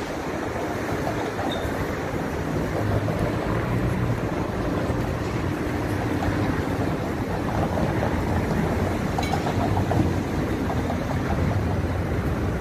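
Steady city traffic at a busy intersection: cars and SUVs driving past, with a continuous low rumble of engines and tyres.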